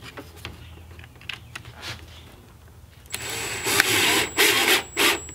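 DeWalt cordless driver running a screw through a plastic clamp into a wooden workbench, in several short bursts starting about three seconds in, after a few faint handling clicks.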